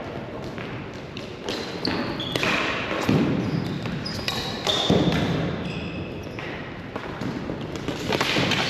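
Ball hockey play: the ball and sticks knock against each other and the floor, with louder knocks about three seconds in, about five seconds in and near the end, over short high squeaks and a constant background of game noise.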